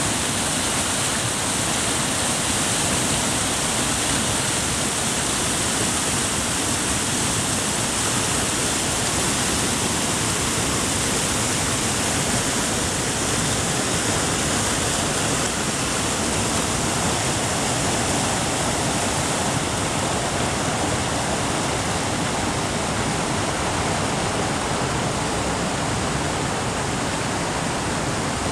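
River water rushing over and between boulders in rapids: a steady, even rush of whitewater with no breaks.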